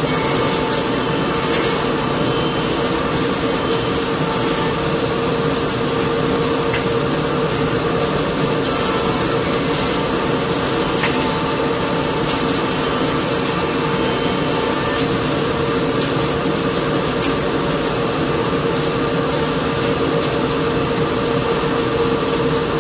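Champ Fond spindle shaper with a power feeder running steadily while oak flooring boards are fed through it to cut a groove: a constant machine drone with a held tone.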